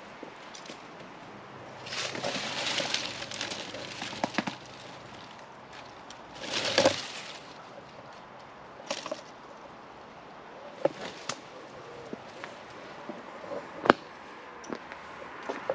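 Irregular crunching footsteps on a gravel path, with scattered sharp clicks, the loudest near the end.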